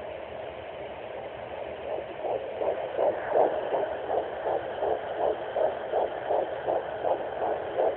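Sonoline B fetal doppler hissing through its speaker. About two seconds in it locks onto the fetal heartbeat: a fast, even pulse of nearly three beats a second, about 160 a minute, the normal fetal rate at 11 weeks.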